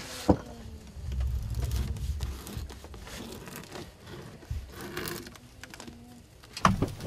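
Rustling and crinkling, with a few sharp knocks and clicks near the start and near the end.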